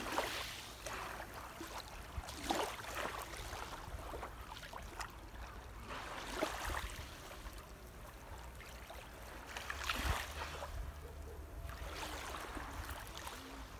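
Small sea waves lapping and washing at the water's edge, a soft wash every few seconds, over a low steady rumble.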